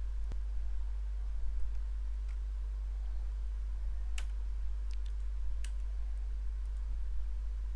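A handful of faint computer mouse clicks, the sharpest about four seconds in, over a steady low hum.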